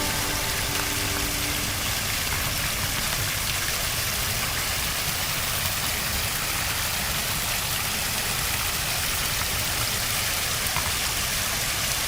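Steady rush and splash of a strong-flowing pond waterfall pouring into a koi pond.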